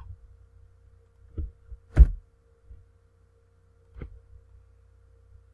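A few separate taps from a computer keyboard and mouse, the loudest about two seconds in, over a faint steady electrical hum.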